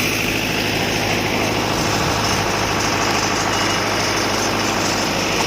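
An engine-driven construction machine running steadily under a dense, even mechanical rattle, with a constant low hum.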